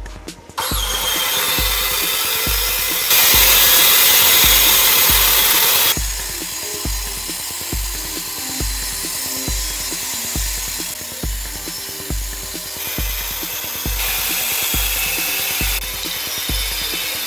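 A power tool running on wood in several spells that change abruptly, loudest from about three to six seconds in, over background music with a steady beat.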